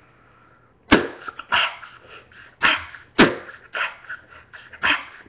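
Human beatboxing into cupped hands: after about a second of quiet, a rhythm of sharp mouth-made kick and snare sounds, about two a second, the deepest kicks about a second in and again past three seconds.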